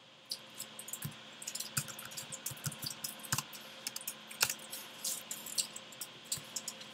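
Typing on a computer keyboard: an uneven run of short key clicks, several a second.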